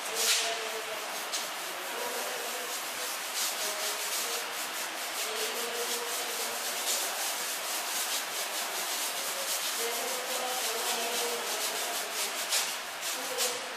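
Paintbrush scrubbing paint onto a rough wall: a scratchy rubbing sound in quick, closely repeated strokes.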